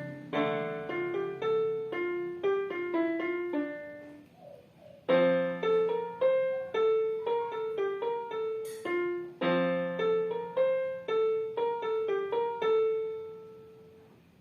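Solo piano playing a simple melody over chords, softening about four seconds in before loud chords come back in; the piece closes on a held note that dies away.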